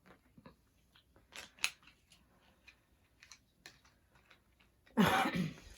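Small diamond-painting tools and plastic pieces being handled and set down: scattered light clicks and ticks, then a louder plastic rustle near the end.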